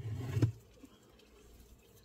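Brief rubbing and creaking of a wooden beehive inner board as gloved hands grip it and start to pry it up, lasting about half a second at the start.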